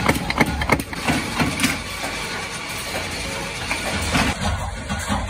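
Mechanical power press blanking metal discs from sheet-metal strip: rapid clanking strokes about three a second in the first second, then steadier machine running noise with a few more knocks near the end.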